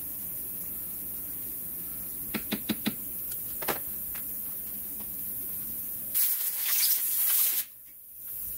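Small parts clicking on a steel workbench, four quick clicks and one more about a second later, then a loud hiss of pressurised spray lasting about a second and a half that cuts off abruptly.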